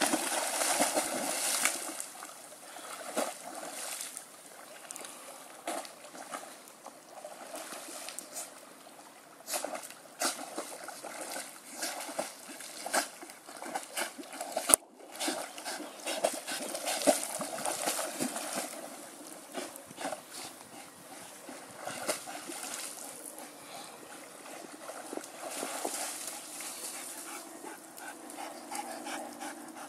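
Large dog leaping into a lake and thrashing about in the shallow water, with repeated irregular splashes and sloshing, loudest right at the start and again about halfway through.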